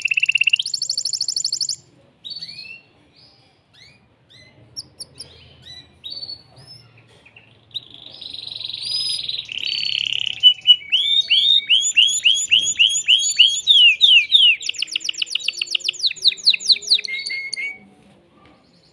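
Male canary singing. A fast rolling trill is followed by scattered short chirps, then a long buzzy roll and a run of rapid downward-sweeping notes that speeds up before stopping near the end.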